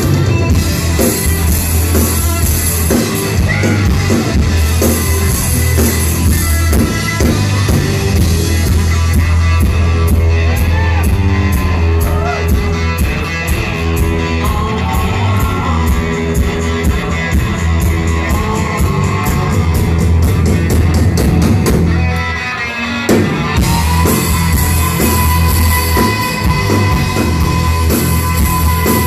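Live hard-rock band playing loud through a club PA, heard from within the crowd: distorted electric guitar, bass and drums with a steady cymbal beat. About 22 seconds in the band stops briefly, then crashes back in under a long held note.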